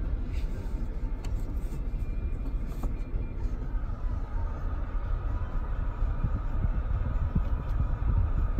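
Steady low rumble inside a 2019 Volkswagen Tiguan's cabin, with a faint hiss above it.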